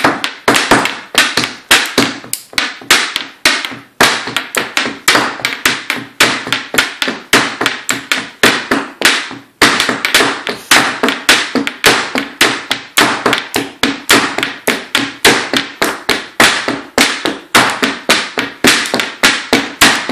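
A small child beating a pair of wooden drumsticks on a countertop as a makeshift drum: a steady run of sharp taps, about three a second, with a short break about ten seconds in.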